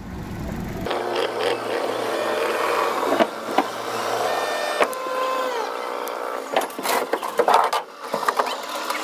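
A Yamaha 115 outboard motor running for about a second, then cut off abruptly. After it come scattered knocks and rattles of gear being handled aboard a fibreglass boat, over a steady background noise.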